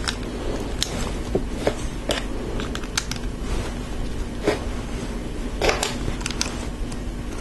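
LEGO plastic bricks clicking and snapping together as small pieces are handled and pressed onto a brick-built head: a dozen or so light, irregular clicks over a steady low hum.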